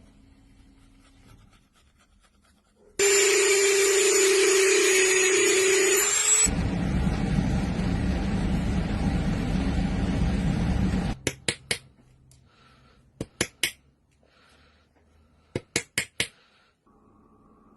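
CNC router spindle running with a steady high whine over a lower hum, then cutting into wood with a coarse grinding noise for a few seconds before stopping abruptly. Several quick clusters of three or four sharp clicks follow.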